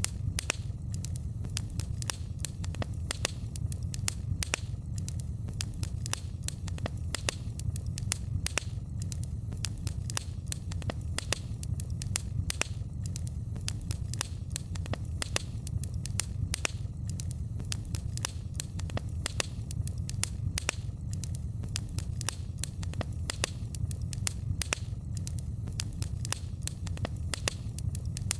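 Fire in a fireplace crackling, with many irregular sharp pops over a steady low rumble.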